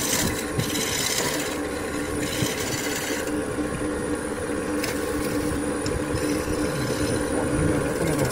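Wood lathe running with a steady motor hum while a turning chisel cuts into the end of a spinning laminated wood cylinder, giving a scraping, hissing cut. The cutting noise is strongest for the first three seconds, then lighter as the cut eases.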